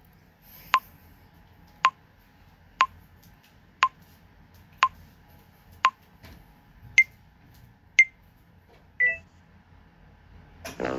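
TikTok app's recording countdown timer beeping about once a second: a run of short, lower beeps, then two higher beeps, then a short final tone of a different kind as the count ends.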